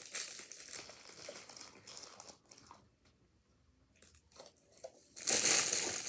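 Clear plastic bag crinkling as fidget toys are handled and packed into it: a stretch of crinkling at the start that fades out, a brief silence midway, then a louder burst of crinkling near the end.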